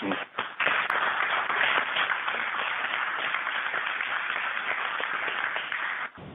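A group of people applauding, dense clapping that starts about half a second in and cuts off suddenly near the end, greeting the call of first-stage separation.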